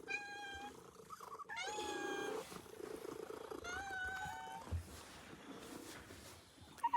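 Domestic cat purring softly, with three short, high mews, the last one stepping up in pitch.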